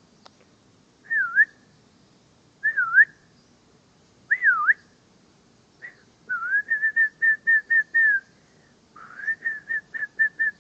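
A person whistling to a puppy: three swooping notes, each dipping down and back up, then two runs of quick warbling notes at about five a second.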